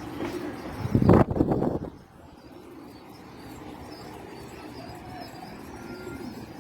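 Domestic pigeons cooing, with a loud, brief burst of noise about a second in.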